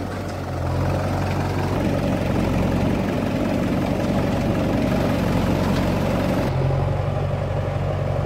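Sonalika DI-750 III tractor's diesel engine idling steadily, with a JCB backhoe loader's engine running alongside.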